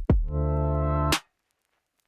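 Electronic background music: a synth chord with drum-machine hits that stops about a second in, followed by silence.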